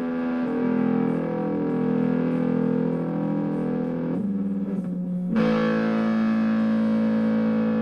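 Hofner 459 VTZ electric guitar played through its onboard fuzz circuit: distorted chords ring on. About four seconds in the top end dulls, and a second later a bright new chord is strummed and sustains. The tone control has only a slight effect on the fuzz.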